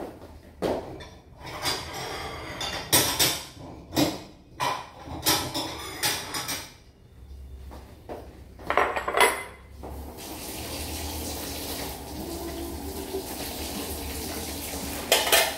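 Dishes and kitchen utensils clattering and knocking in separate bangs for the first several seconds, then a kitchen tap running steadily into a sink while food is washed under it, with a last clatter of dishes near the end.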